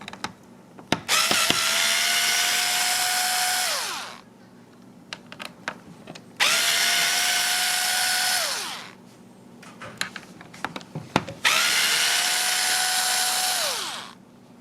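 Power drill running three times for about three seconds each, each time winding down at the end, as it backs out the screws holding the bidet's water heater tank. Small clicks and knocks of handling come between the runs.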